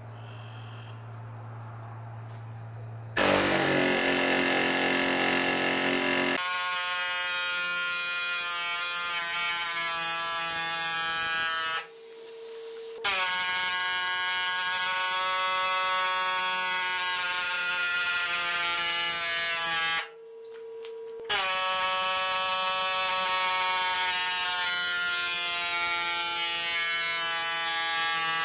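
Air hammer driving a copper ground rod through a socket fitted over its top, hammering with a steady high buzz. It starts about three seconds in and runs in three long stretches of several seconds, cutting out twice for about a second.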